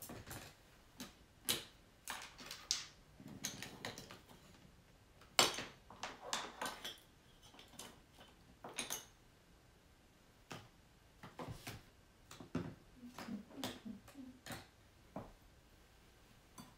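Irregular light clicks, taps and knocks of art supplies being handled and set down on a work surface. The loudest knock comes about five and a half seconds in, with busier patches after it and again near the middle.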